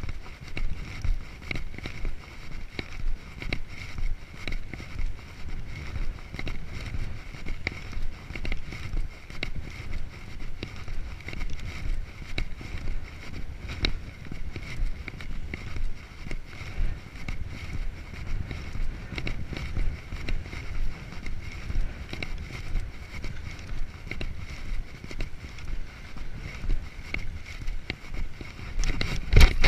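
Footsteps on a concrete breakwall at a steady walking rhythm, with wind rumbling on the microphone. A couple of louder knocks near the end.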